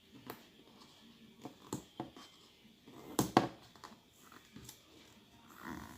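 Fingers picking and peeling at sealing tape and stickers on a cardboard box: scattered scratches, clicks and rustles, the loudest a pair of sharp scrapes about three seconds in.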